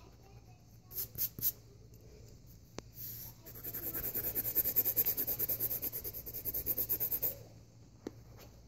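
Colored pencil scratching on sketchbook paper: three short strokes about a second in, then about four seconds of rapid back-and-forth shading strokes.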